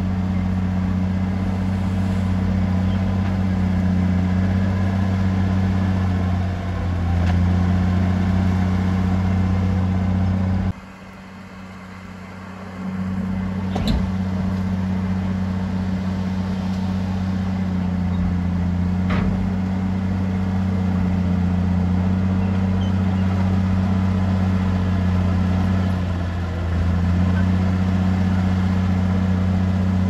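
Heavy construction machine's diesel engine running steadily at an even speed, with a deep low hum. It drops away sharply for about two seconds near the middle, then comes back at the same steady speed.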